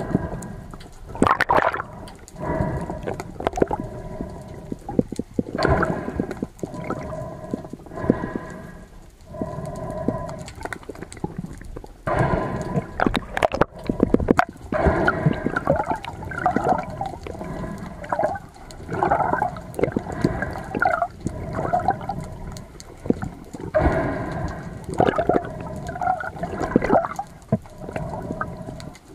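Water gurgling and sloshing at close range around a spearfisher in the sea, in repeated surges every second or two with a hollow, ringing tone.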